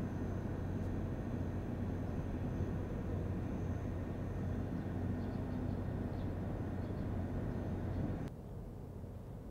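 Steady low mechanical hum of an engine or generator running, with a faint thin high whine over it; it drops away abruptly about eight seconds in.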